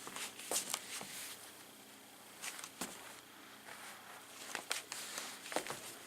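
Soft, irregular footsteps and rustling of clothing and strap as a person moves about in a small room, a few scattered taps over the stretch.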